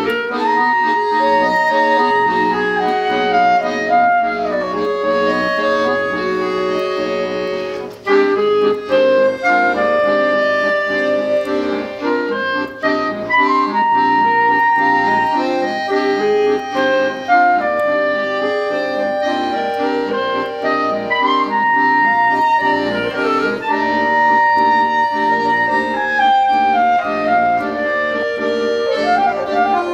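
Clarinet playing a melody that moves in slow stepwise falls over sustained chords from two button accordions. The music briefly drops away about eight seconds in, then picks up again.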